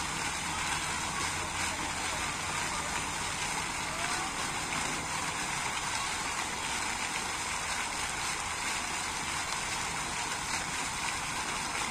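Steady splashing and rushing of water from fountain jets falling back into their pool.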